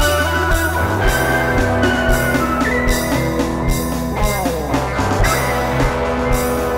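Improvised psychedelic rock jam: electric guitar holding long lead notes over keyboard and a steady drum beat of about two hits a second, with a downward swoop in pitch about four seconds in.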